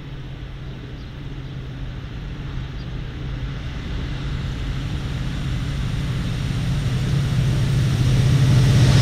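Stadler locomotive hauling a freight train on approach: a steady low hum that grows steadily louder as it nears.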